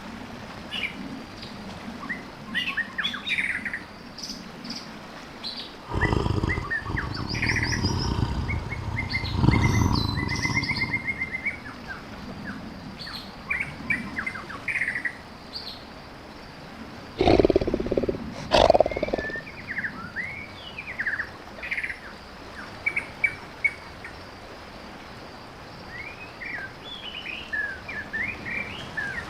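Birds chirping throughout, with a tiger growling twice in long, low, pulsing growls: one lasting several seconds about six seconds in and a shorter one a little past halfway.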